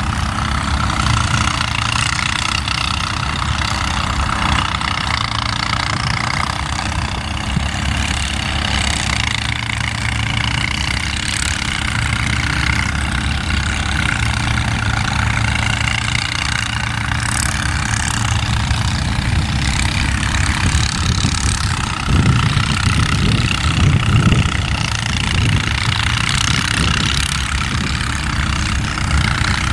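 Diesel-electric locomotive engine running with a steady drone and low rumble as the train approaches, the rumble growing louder a little over two-thirds of the way through.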